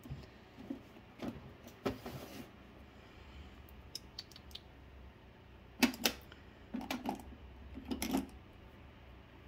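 Small makeup tubes and containers being handled and sorted, giving scattered sharp clicks and short clatters, loudest in three clusters from about six seconds in.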